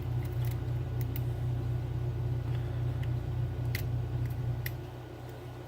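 A low, steady rumble that fades about five seconds in, over a few faint, sharp clicks of a lock pick working the pins of a 7-pin Trioving oval lock.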